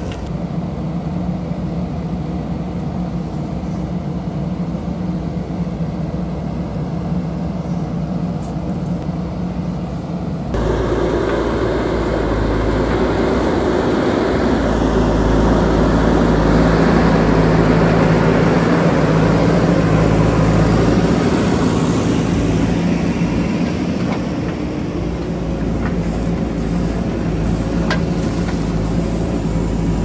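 JCB backhoe loader's diesel engine running steadily as the machine works. About ten seconds in, the sound jumps abruptly to a louder, rougher engine noise.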